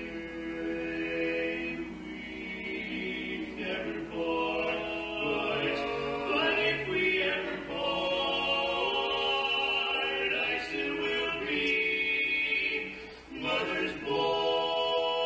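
Barbershop quartet of four men singing a cappella in close harmony, moving through sustained chords. The sound drops briefly about 13 seconds in, then a long chord is held.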